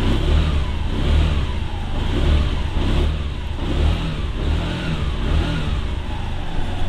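Maxi-scooter engine running with the throttle blipped repeatedly, its pitch rising and falling. The exhaust is a little noisy.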